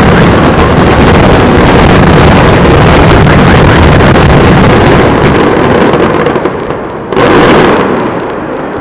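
Fireworks barrage: a dense, continuous run of bangs and crackle, loud enough to overload the microphone, easing off after about six seconds before one more loud burst and a fade.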